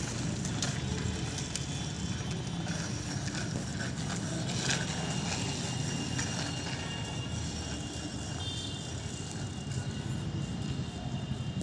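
A child's bicycle with training wheels rolling over a tiled floor: a steady rumble with scattered rattling clicks.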